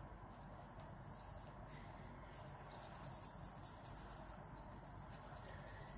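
Faint rubbing and scratching of a dry cotton pad wiped over a dirty metal valve piston from a baritone, in short, uneven strokes.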